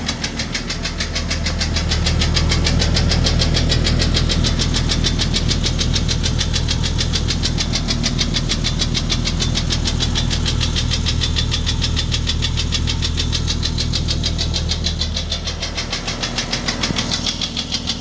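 1999 Jeep Cherokee XJ's 4.0L inline-six running with a loud, rapid, rhythmic tapping knock. The uploader attributes it to piston slap from a broken piston skirt. The engine gets louder about two seconds in and eases back near the end.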